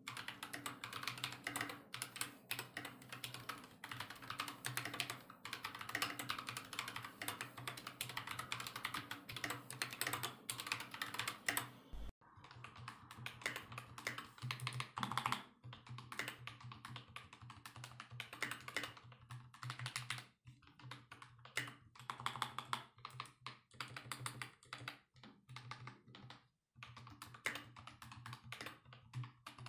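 Fast typing on an AKKO 5108S mechanical keyboard, a dense run of key clicks. A brief cut about twelve seconds in splits it into two stretches of typing: the board as it sounded before and after lubing the switches and adding sound-dampening foam and O-rings.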